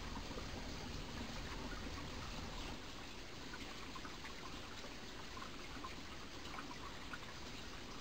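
Mountain stream running: a steady rush of water with small trickles and splashes dotted through it.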